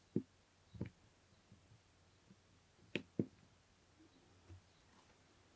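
Quiet room tone with a few soft clicks and knocks: one at the start, one about a second in, and two close together about three seconds in.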